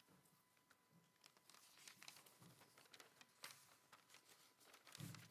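Faint rustling and crinkling of thin Bible pages being turned, in many short, scattered bursts.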